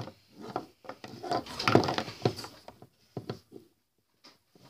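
Light handling knocks and taps: plastic toy pony figures being moved and set down on a wooden desk, a scattering of short clicks, the loudest a little under two seconds in.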